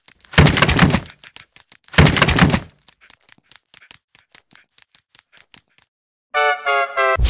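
A dog's claws clicking quickly on a hardwood floor, with two loud crashing bangs about half a second and two seconds in. Near the end, a short run of pitched electronic tones.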